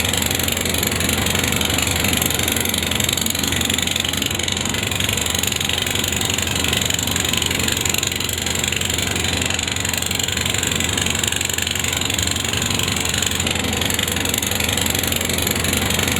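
Engine boat's motor running steadily under way, a constant low hum under an even hiss of wind and water.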